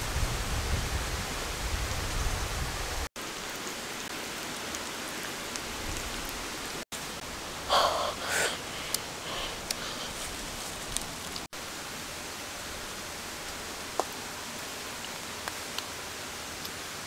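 Steady outdoor hiss, cut by three brief dropouts to silence, with a boy's short vocal exclamation about eight seconds in.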